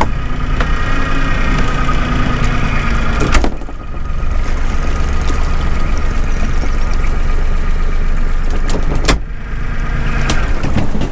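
A small fishing boat's outboard motor running as the boat motors a short way off from a drifting float. A steady low drone carries a whine over it, and the sound drops briefly twice, a few seconds in and near the end.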